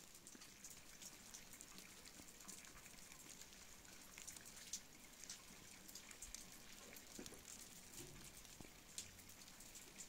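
Near silence, with faint, scattered light ticks of falling wet snow.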